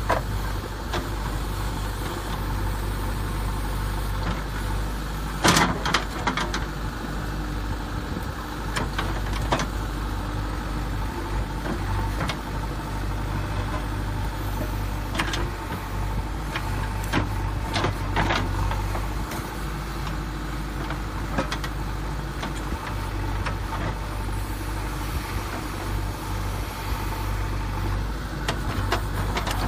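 A steady low engine-like hum, with a few sharp clicks about five and a half seconds in and several more around fifteen to eighteen seconds in.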